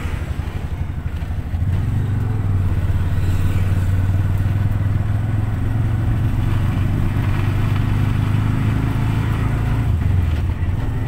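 Small motorcycle engine running steadily under way, with a fast low flutter; it grows louder about a second and a half in and holds there.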